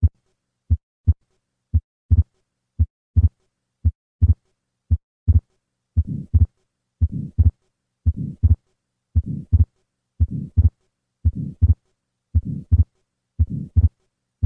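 Heart sounds of a patient with an atrial septal defect, about one beat a second. The first beats have single first and second sounds. About two seconds in, the second sound splits into two close clicks. From about six seconds in, a systolic murmur fills the gap after the first sound. Together these are the pulmonic flow murmur and fixed split second sound of an atrial septal defect.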